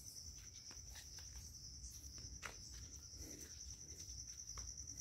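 Faint insect chirring, a steady high-pitched pulsing trill, with a few soft clicks.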